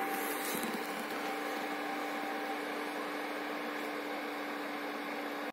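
Longer Orange 30 resin LCD 3D printer running mid-print: a steady hum from its motor and cooling fans. A fainter, higher tone in it stops about two and a half seconds in.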